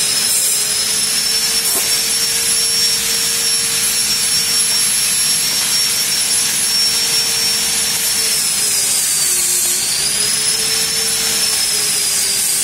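Argon TIG welder running: a steady hiss with a high whine, the pitch dipping briefly and recovering about nine seconds in.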